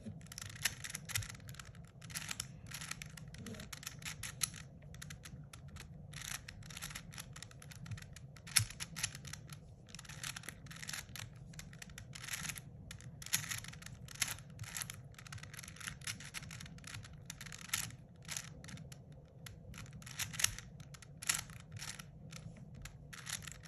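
A 4x4 Rubik's cube being turned quickly through a long algorithm: rapid, irregular plastic clicking and clacking of the layers rotating, over a low steady hum.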